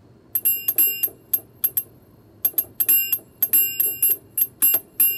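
High, bell-like notes played on a keyboard in an uneven rhythm. Each struck note rings briefly with bright chiming tones.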